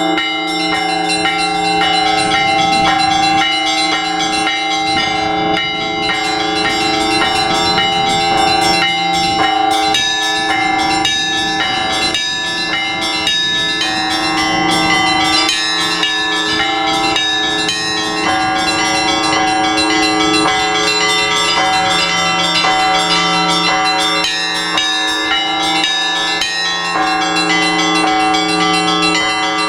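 Russian Orthodox church bells rung together in a continuous peal: several bells of different sizes, struck in quick repeating patterns over steadily sounding deeper tones. It is the ringing that calls to the all-night vigil.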